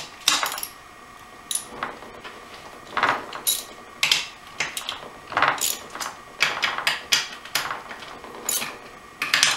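Metal hand tool clinking and clicking against the 12 mm bolts on an AX5 transmission's top cover as they are worked loose by hand: irregular sharp metallic clicks, a couple each second, some ringing briefly.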